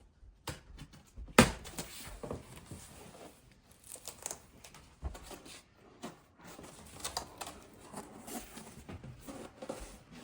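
Cardboard packaging of a LEGO set being handled and opened: irregular rustling, scraping and tapping, with one sharp snap about a second and a half in.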